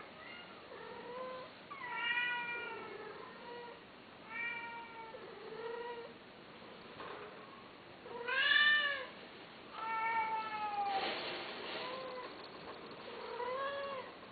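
A cat meowing over and over, about seven or eight separate meows, each rising and falling in pitch. The loudest meow comes a little past the middle, and a long falling one follows it.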